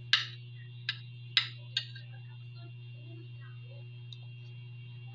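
Metal fork and spoon clinking against a plate, four sharp clinks with a brief ring in the first two seconds, over a steady low hum.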